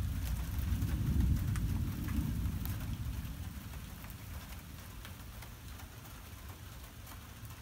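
Thunder rumbling, loudest about a second in and then dying away, with faint ticks of rain falling.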